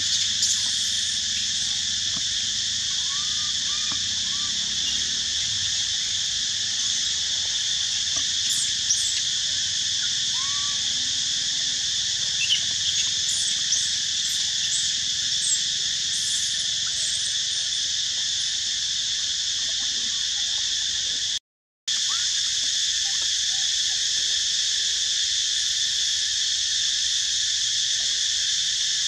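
Steady, high-pitched drone of an insect chorus, unbroken apart from a brief dropout about three quarters of the way through, with a few faint short chirps over it.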